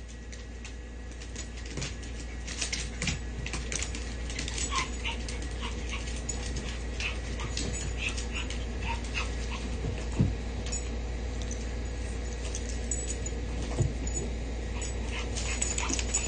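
Small dogs playing rough together: short yips and whimpers over scattered clicks and scuffles of paws on the floor, with two louder thumps about ten and fourteen seconds in.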